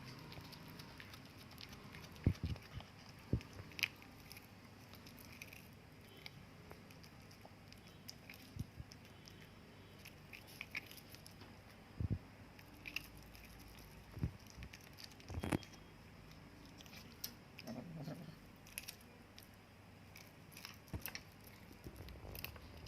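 Cat chewing and crunching its food, with irregular small bites and clicks.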